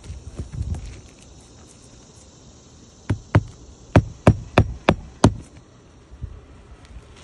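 Hammer blows on a roof during a shingle repair: seven sharp strikes in about two seconds, starting about three seconds in, after a few softer knocks near the start.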